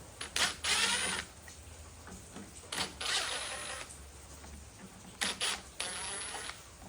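Cordless impact driver with a T20 Torx bit backing screws out of a mower's plastic cover, running in several short bursts of rapid hammering, each about a second or less.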